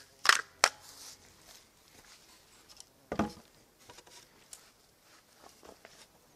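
Wooden beam being handled on a wooden sawhorse: a few sharp knocks near the start, a dull wooden thud about three seconds in as the beam is set down, and light scattered knocks and shuffling.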